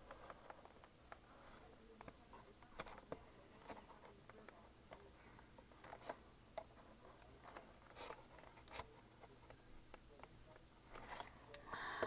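Faint, scattered clicks and scrapes of a knife being worked into a trading-card box's packaging, with a louder rustle of the packaging near the end.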